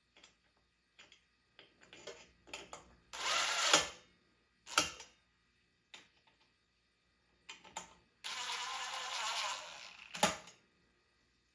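Clicks, knocks and two longer scraping runs of hands working on a ceiling fan's metal parts while the blades are screwed on with a screwdriver.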